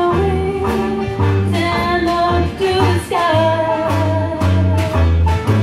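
Female vocalist singing a slow jazz ballad over a traditional jazz band, with bass notes pulsing beneath and light rhythmic strikes. About halfway through, a long held note sounds over the band.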